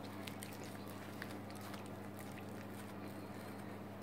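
Hands pressing and spreading sticky rice over a nori sheet on a bamboo rolling mat: faint, scattered soft pats and clicks, over a steady low hum.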